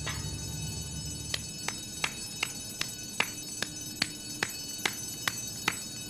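Building fire alarm bell ringing in evenly spaced strikes, about two and a half a second, each with a short ring; it is going off as a false alarm.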